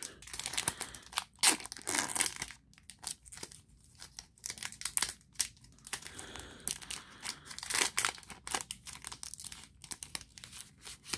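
Foil wrapper of a Pokémon TCG Evolutions booster pack crinkling on and off as it is handled and pulled open by hand.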